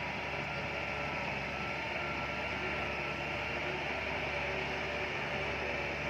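Diesel engine of heavy earthmoving machinery running steadily, with faint whining tones over the engine noise.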